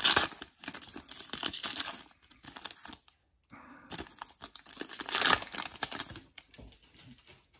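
Foil wrapper of a trading-card pack crinkling and tearing as it is ripped open by hand, then rustling as the cards are slid out. The crinkling comes in two bouts, at the start and again about five seconds in, with a brief pause between them.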